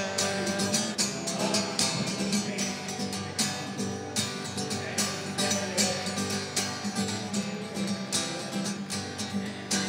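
Cutaway jumbo acoustic guitar strummed in a steady rhythm, played solo as an instrumental break between sung verses.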